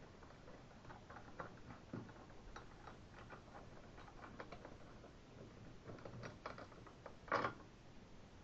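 Small metal parts of a hydrostatic transmission clicking and tapping as they are handled and fitted by hand, with one louder clack about seven seconds in.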